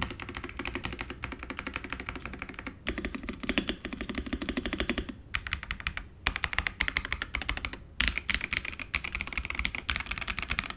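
Fast typing on a Xinmeng X87 gasket-mounted mechanical keyboard with a PC plate and Kailh Crystal Burgundy switches. The keystrokes come in quick runs broken by short pauses every couple of seconds.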